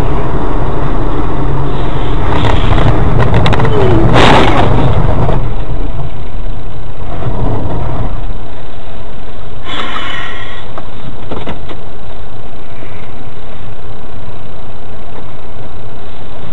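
Road-vehicle engine and road noise, with a sudden loud noisy burst about four seconds in and another short burst near ten seconds.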